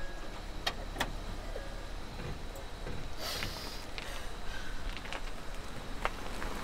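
Car cabin sound: a steady low engine rumble with a few scattered sharp clicks and a short hiss about three seconds in.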